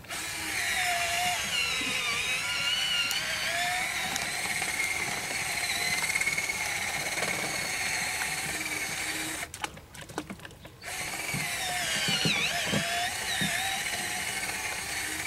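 Cordless drill running with its bit turning in packed dirt behind a weep hole in vinyl sheet piling, clearing out the soil. Its whine wavers in pitch as the load changes. It stops for about a second around two-thirds through, then starts again.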